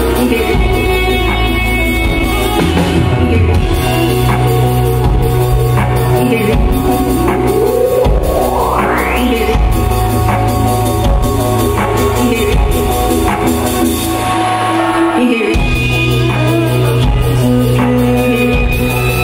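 Live electronic band music with a steady bass and drum beat. A synth sweep rises in pitch about a third of the way in. The bass drops out for a moment about three-quarters through, then comes back in.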